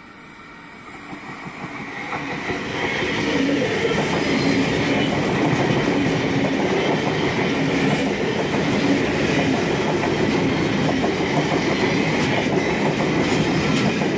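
A V set double-deck electric intercity train, two sets coupled, passing through the station without stopping. Its noise builds over the first few seconds, then holds steady and loud as the cars run past.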